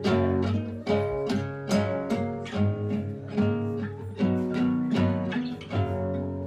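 Background music: an acoustic guitar playing plucked chords in a steady rhythm, with no singing.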